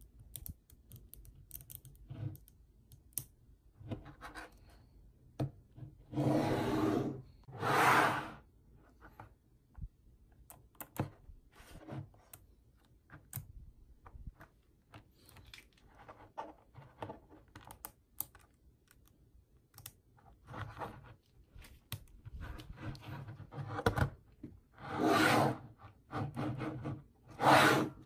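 Tiny neodymium magnetic balls clicking and snapping together as they are handled, pulled apart and pressed into shape. A few louder clattering stretches of about a second each come around six and eight seconds in and twice near the end.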